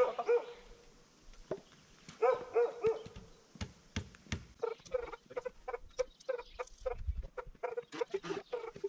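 Chickens clucking: a couple of drawn-out calls about two seconds in, then a quick run of short, pitched clucks from about halfway through.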